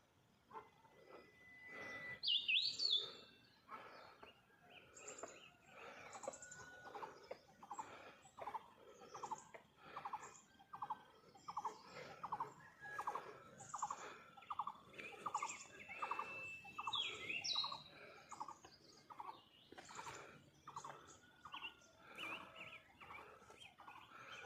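Several birds chirping and calling: a steady run of short, quickly repeated notes, with louder, higher whistled calls about two seconds in and again around seventeen seconds.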